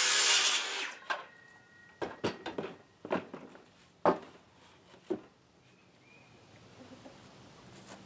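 A saw cutting through a wooden board stops less than a second in. Several sharp wooden knocks and clatters follow, the loudest about four seconds in.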